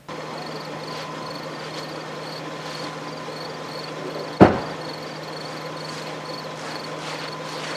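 Nissan Pathfinder engine idling with a steady hum while crickets chirp in a regular high-pitched pulse. A car door shuts about four and a half seconds in, the loudest sound.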